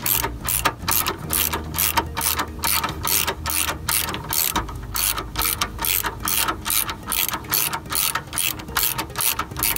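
Hand socket ratchet on an extension clicking in a fast, even rhythm of about four clicks a second as it turns out a motor-mount support bracket bolt.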